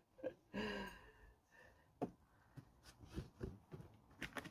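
Potting soil being tipped and scraped out of a plastic bucket into a plastic tub: scattered faint knocks and rustles, with sharper clicks about two seconds in and near the end. There is a short vocal sound from the person about half a second in.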